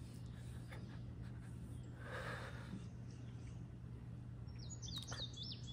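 Faint outdoor ambience with a steady low hum: a soft breath or sniff about two seconds in, and near the end a bird giving a quick run of short, rising high chirps.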